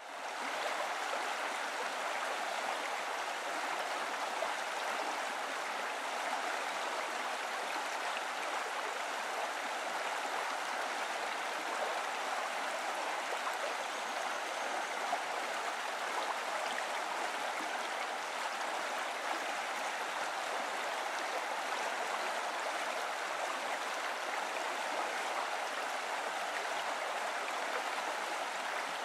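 Running water from a stream, a steady, even rush with no breaks.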